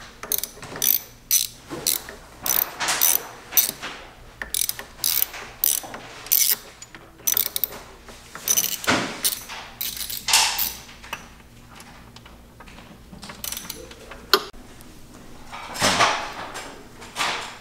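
Ratchet wrench clicking in repeated short runs as bolts are worked loose on the water pump cover of a Honda GL500 Silverwing engine, with a quieter stretch partway through.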